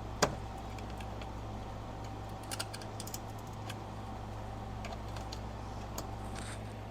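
Sharp metallic clicks and clinks of a hand wrench working on fasteners under a car. There is one sharp clink near the start and a small cluster of them about two and a half to three seconds in, over a steady low hum.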